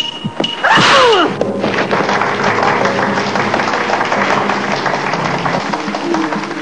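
A sharp whack with a ringing ping, and a few lighter knocks, as in a kung-fu fight. About a second in comes a falling yell, and then a loud, dense noise with music.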